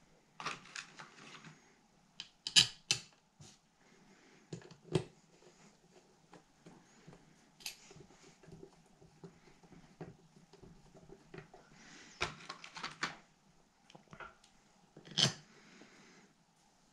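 Scattered light clicks, taps and clinks of small metal carburetor parts being handled, set down and fitted together during reassembly of an Edelbrock Performer carburetor, with quiet gaps between; the sharpest knocks come about two and a half seconds in and again near the end.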